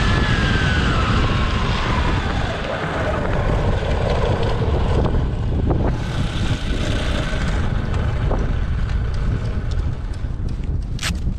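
The whine of an electric go-kart's twin Castle 2028 800KV brushless motors, falling steadily in pitch over the first four or five seconds as the kart slows, under heavy wind buffeting on the microphone. A few sharp clicks come near the end.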